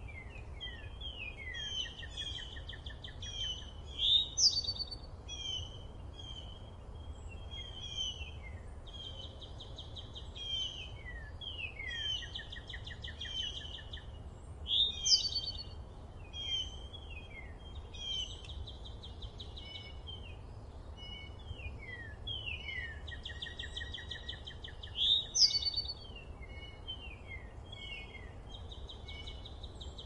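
Chorus of songbirds: many quick down-slurred chirps overlapping with rapid trills, and three louder sharp calls about ten seconds apart, over a steady low rumble of background noise.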